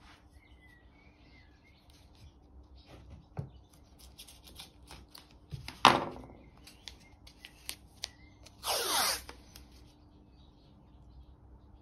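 Green masking tape being laid on an MDF panel: light rubbing and small clicks as strips are pressed down, a sharp knock about six seconds in, and a short rasping rip about nine seconds in as a fresh strip is pulled off the roll.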